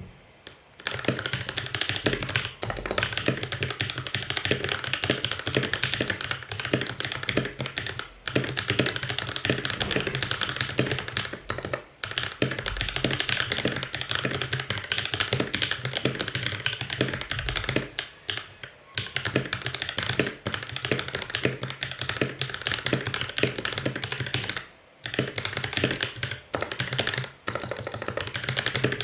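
Continuous fast typing on a Vortex Series VX5 mechanical keyboard fitted with lubed linear Outemu Yellow switches (Gateron yellow stems), on a thick aluminium plate with lubed, clipped and band-aid-modded stabilizers. Rapid key strokes run steadily from about a second in, with a few short pauses.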